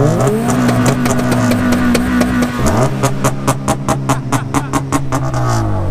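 Honda CR-X del Sol's engine revved hard and held at a steady high rev, dipping briefly about two and a half seconds in and holding again with a fast, regular crackle, then dropping near the end.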